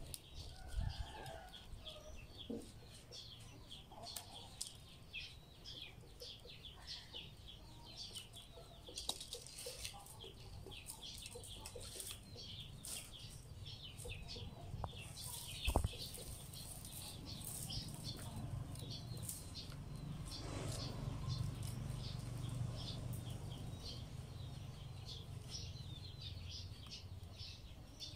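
Rattan strands rustling and ticking against each other as they are worked through the weave of a basket by hand, a dense run of small crackling clicks, with a single sharp knock about halfway through.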